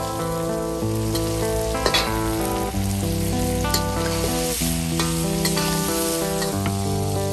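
Shrimp sizzling in a hot wok as a metal wok spatula stirs and tosses them, with a few sharp scrapes of the spatula on the wok, over light plucked-string background music.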